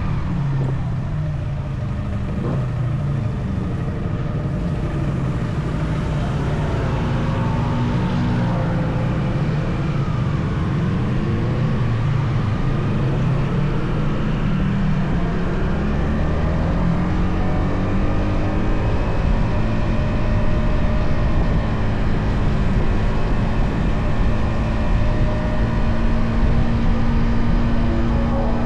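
Stock Yamaha XSR155 single-cylinder engine and stock exhaust heard on board while riding. The engine note dips and rises with the throttle, then settles into a steady, higher drone in the second half.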